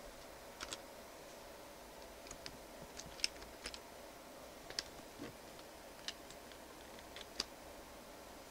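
Computer keyboard keys being typed one at a time at an uneven pace, a few keystrokes a second with short pauses, over a faint steady hum.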